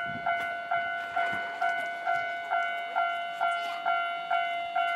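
Japanese level crossing warning alarm sounding its repeated electronic 'kan-kan' tone, about two strikes a second, each strike fading before the next.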